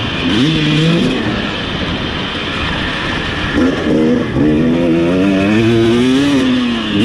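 Husqvarna TC250 two-stroke motocross engine being ridden: a short rev about half a second in, a couple of seconds with less throttle, then from about three and a half seconds it picks up and climbs steadily in pitch before dropping near the end. A steady rushing noise runs under the engine.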